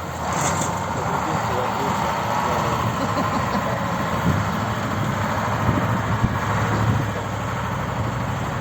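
KamAZ truck's diesel engine running steadily, easing off slightly about seven seconds in.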